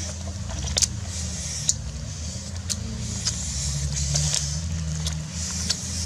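A metal pot of water boiling hard over a wood fire: a steady low bubbling rumble and hiss, with a sharp click about once a second.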